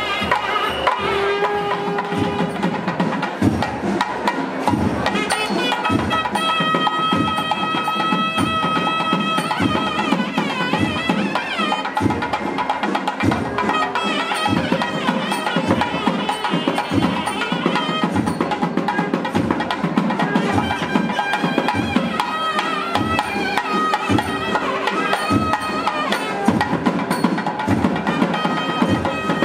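Tamil temple procession music: a nadaswaram reed pipe plays long, wavering held notes over a steady thavil drum beat.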